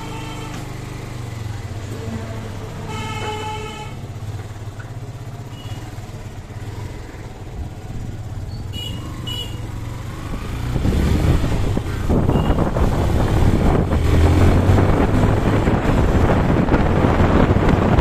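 Motorcycle engine running as the bike pulls away and rides along a road, with a horn beeping briefly about three seconds in. From about ten seconds in, wind rushing over the microphone grows loud as the speed builds.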